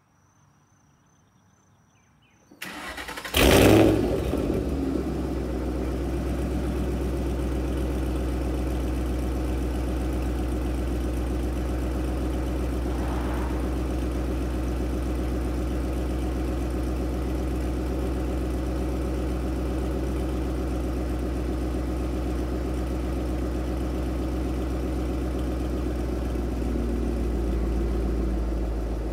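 Ford Mustang Bullitt's 4.6-litre three-valve V8 starting about two and a half seconds in, with a short loud flare of revs as it catches, then settling into a steady idle. It breathes through long-tube headers and an off-road H-pipe with no catalytic converters.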